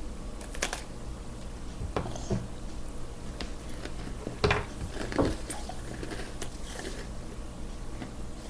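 A person biting into and chewing a cookie: scattered short crunches, the loudest about four and a half and five seconds in, over a steady low hum.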